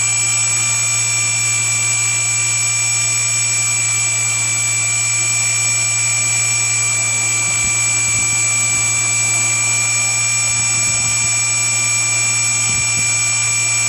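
Small brushless outrunner motor spinning steadily on a Turnigy Multistar 30A ESC with SimonK firmware: a constant electric whine over a low hum, with no change in speed.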